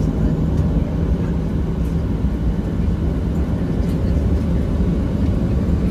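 Boeing 737-800 cabin noise while taxiing, heard from a seat beside the wing: the CFM56-7B engines at idle and the rolling airframe give a steady low rumble.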